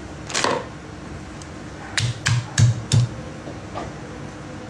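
Stone mortar and pestle pounding red chillies and shallots for sambal: one knock about half a second in, then four quick, heavy thuds, about three a second, around the middle.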